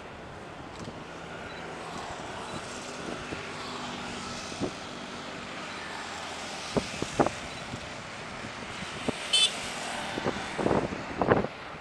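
Boeing 787-9 Dreamliner's jet engines heard from outside the airfield on final approach and landing: a steady whooshing jet noise that swells a little midway. From about seven seconds in, a scatter of sharp clicks and knocks, the loudest near the end.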